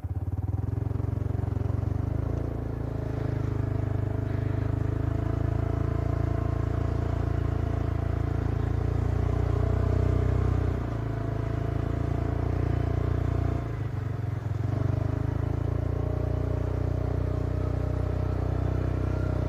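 ATV engine running steadily under throttle while riding along a muddy track, easing off briefly twice, about halfway through and again a few seconds later.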